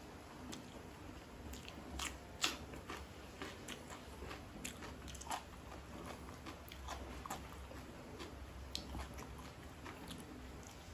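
Close-miked chewing of a mouthful of satay meat: soft wet mouth clicks and smacks, scattered irregularly, the sharpest about two and a half seconds in.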